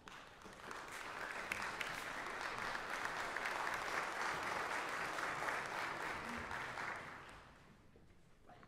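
Audience applauding: a dense patter of clapping that swells in about a second in, holds steady, and dies away near the end.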